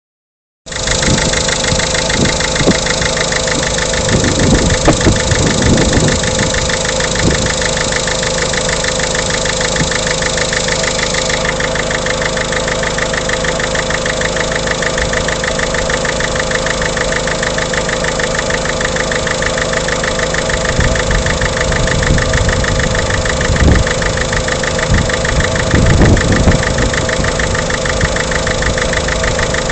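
Peugeot 307's 1.6 HDi four-cylinder diesel engine idling steadily with a fine, even diesel clatter. A few low thumps come through, mostly around five and twenty-six seconds in.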